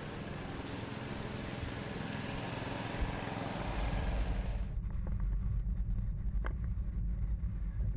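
A trailer being towed on the road behind a pickup: a low, steady rumble of tyres and wind picked up by a microphone on the trailer, with a couple of short knocks. In the first few seconds there is a steady hiss instead.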